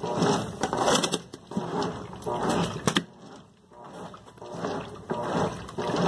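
GE Super Capacity top-load washing machine agitating a load in soapy water: water and clothes swishing in rhythmic surges with each stroke of the dual-action agitator, with a few sharp clicks. The swishing drops away briefly about three seconds in, then resumes.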